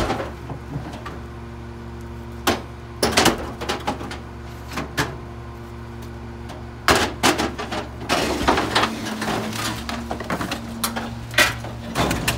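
Rear-loader garbage truck idling with a steady low hum while cardboard boxes and bulky household junk are thrown into its hopper. Scattered sharp knocks come first, a loud one about seven seconds in, then a busy run of clattering and banging near the end.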